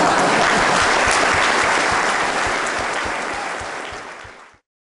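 Audience applauding: dense, steady clapping that thins out and then cuts off abruptly about four and a half seconds in.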